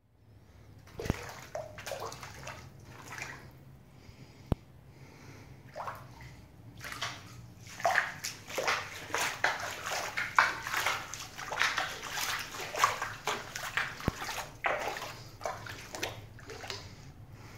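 Shallow floodwater on a bare floor splashing and sloshing in irregular bursts as someone walks through it, busiest in the second half, with a few sharp clicks.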